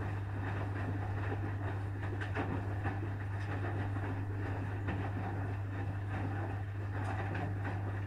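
Asko front-loading washing machine running its wash program: a steady low hum under irregular swishing with scattered faint knocks.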